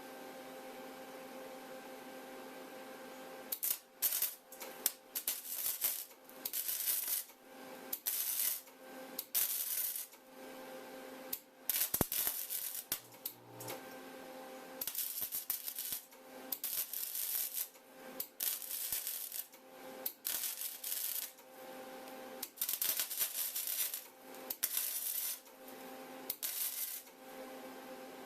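Electric arc welding: the arc crackles and sputters in a series of short welds, each lasting under a second to about a second, starting a few seconds in and stopping shortly before the end, over a steady hum.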